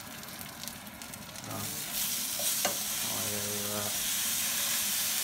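Floured hapuku fillets frying in olive oil and butter, sizzling. About two seconds in the sizzle jumps suddenly louder as another fillet goes into the hot pan, with a sharp click of the spatula on the pan soon after.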